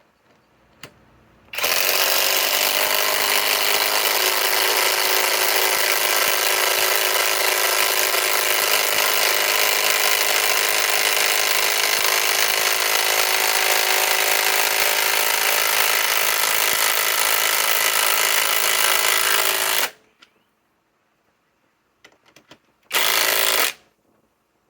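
Kobalt 24-volt right-angle impact wrench hammering steadily for about eighteen seconds as it drives a 6-inch TimberLOK structural screw into wood, then stopping abruptly. A short second burst of under a second follows near the end.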